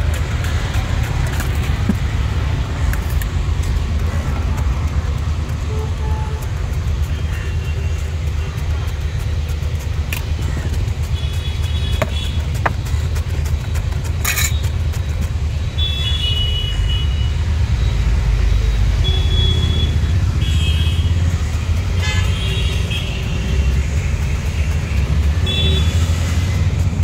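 Busy road traffic: a steady low rumble of passing vehicles, with short vehicle horn toots sounding again and again from about the middle on.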